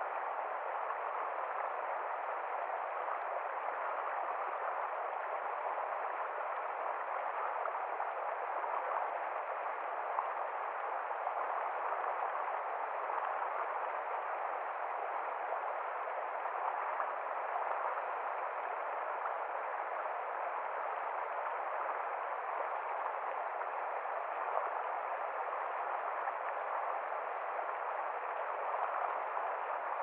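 Shallow river flowing over rocks: a steady, unbroken rush of water.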